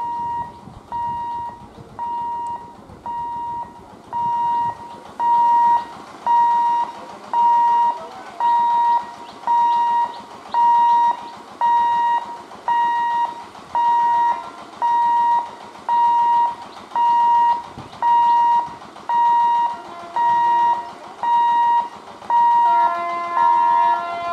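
Level-crossing warning hooter beeping, a single high electronic tone repeating about once a second, getting louder after the first few seconds. Near the end a second, lower tone sounds along with the beeps.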